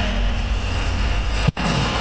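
Aerial fireworks bursting overhead: dense booming and crackling with a deep rumble, and one sharp bang about one and a half seconds in that is followed by a brief dropout.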